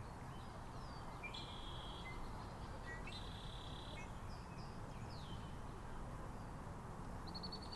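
Faint bird song over a steady low outdoor background hum: two held notes about a second and a half apart, then a few short falling notes, with a quick run of notes starting near the end.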